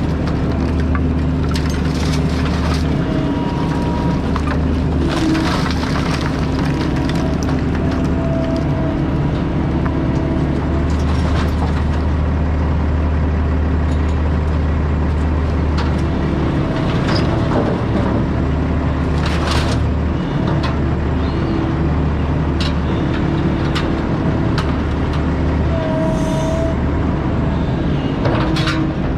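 A heavy diesel engine, an excavator's, runs steadily under load, with scattered cracks and knocks of wood and debris being broken and handled.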